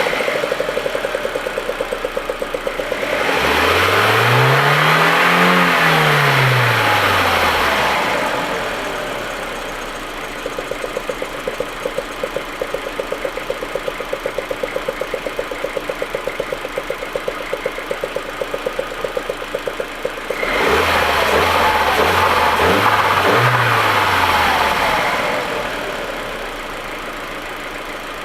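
Audi A4 1.8T turbocharged four-cylinder engine idling with a regular uneven pulse in its beat, the rough, misfiring idle the owner is chasing. It is revved twice: a smooth blip about three seconds in, and a second, more uneven one about twenty seconds in.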